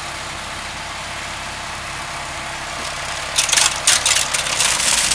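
John Deere Gator with a front-mounted Berco snow blower running steadily. About three and a half seconds in, the blower bites into heavy, half-melted snow and a loud, irregular crackling clatter starts as chunks are chewed up and thrown.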